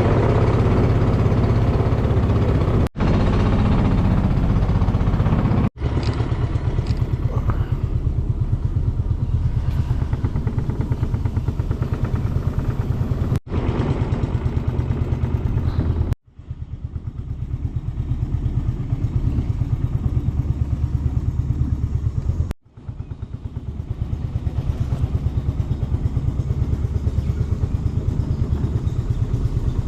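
A small boat's outboard motor running steadily at speed, broken by several sudden brief dropouts.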